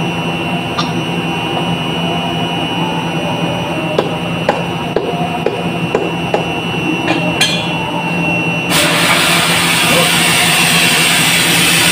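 Scattered light clicks and knocks of an air filter element and its housing being handled and fitted on a screw air compressor's intake, over a steady machinery hum. Near the end the sound changes abruptly to a louder, even noise.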